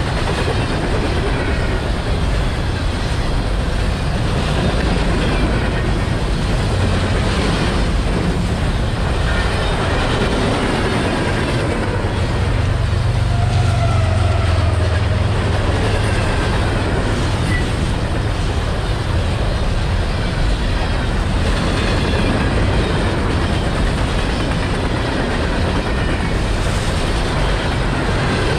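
Freight train rolling past, the steady rumble and clatter of its cars on the rails, with a deeper low drone swelling for a few seconds near the middle.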